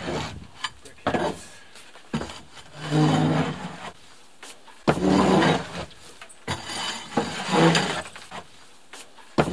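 Hand tools and old containers scraping and rubbing against wood and debris, in several short bursts about two seconds apart, with sharp knocks in between.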